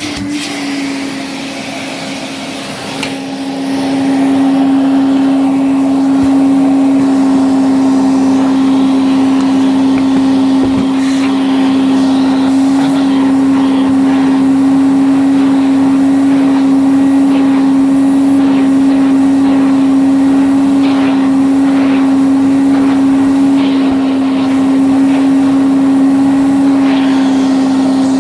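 A 1978 Hoover 427 vacuum cleaner running, its motor giving a steady hum with a strong single pitch. It grows louder about four seconds in, then holds steady.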